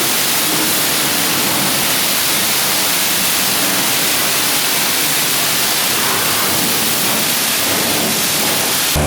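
High-pressure washer wand at a self-service car wash, spraying in a steady loud hiss.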